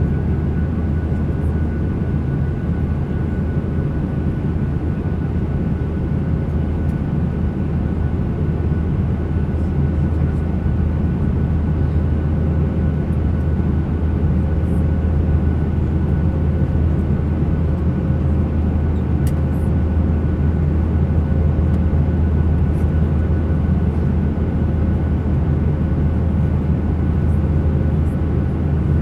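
Airliner engines and airflow heard inside the passenger cabin: a steady, unchanging deep drone with two thin steady whine tones above it. A few faint light clicks sound now and then.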